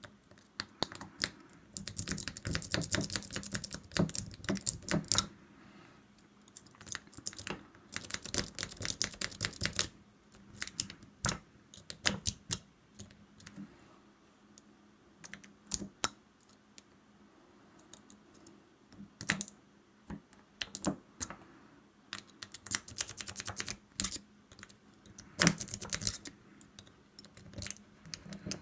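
Lock pick clicking and scraping against the wafers of a double-sided wafer lock while it is being picked under a tension wrench. Rapid runs of small metallic clicks come three times, with scattered single clicks between.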